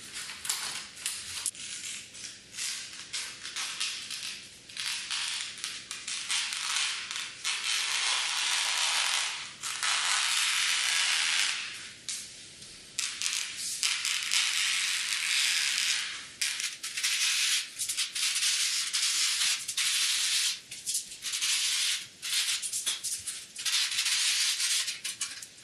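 Scissors cutting lengthwise through the fabric of an IKEA roller blind, to trim it to size: a rasping hiss that runs in long strokes of a few seconds through the middle, then in shorter, choppier cuts toward the end.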